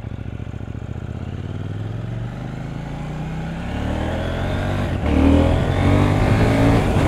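The 2018 KTM 790 Duke's 799 cc parallel-twin engine with its stock exhaust runs steadily, then from about two seconds in the revs climb. It gets louder about five seconds in as the throttle opens further.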